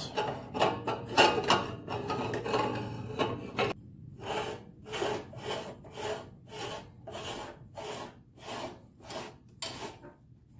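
Threaded metal retaining ring being screwed by hand onto a meat grinder's head to hold a plastic stuffing tube, its threads rasping. The scraping is continuous at first, then comes as short strokes about two to three a second as the ring is turned.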